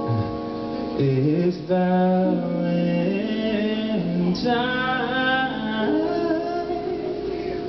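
Male singer singing live into a microphone, holding long notes that glide between pitches, over a band with keyboard and electric guitars.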